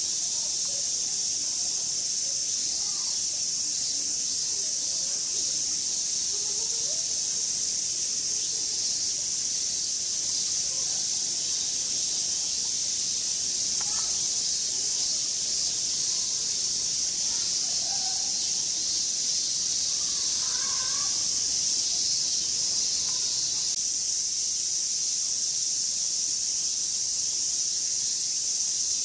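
Steady, high-pitched drone of a summer cicada chorus, even in level throughout.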